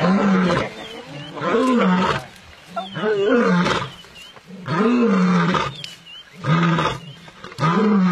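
Lion roaring: a series of six deep calls, each rising and falling in pitch, about one every one and a half seconds.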